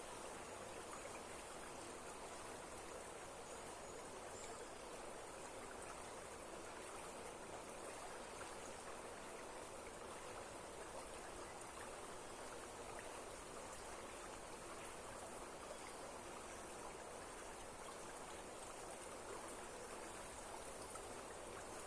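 Steady rushing water of a waterfall running strong, an even unbroken noise.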